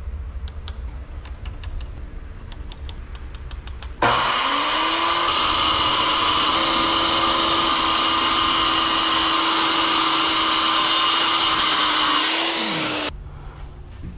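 Circular saw switched on about four seconds in, cutting through plywood for about eight seconds, then released and spinning down. A few light ticks come before it.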